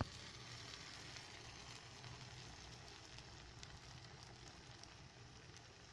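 Beaten egg poured over fried bread cubes in a hot oiled nonstick pan, sizzling faintly as a steady hiss that starts suddenly as the egg hits the pan.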